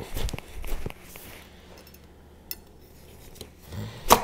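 Vosteed 8-inch chef knife being forced down through a tough spaghetti squash on a wooden cutting board: a few soft knocks and creaks in the first second, then one sharp, loud knock near the end as the blade works through.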